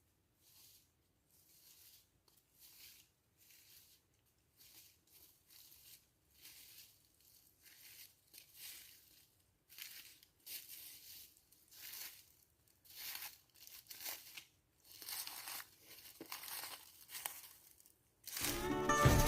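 Footsteps crunching through dry fallen leaves, about one or two steps a second, faint at first and growing steadily louder as the walker comes closer. Loud music starts near the end.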